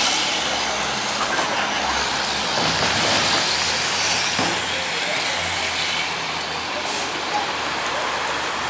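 Autocar ACX garbage truck with a Heil Durapack Python automated side loader, its engine running steadily, with a short hiss of air brakes near the end.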